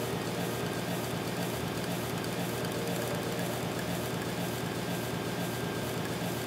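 Steady droning hum with a faint regular pulse running through it.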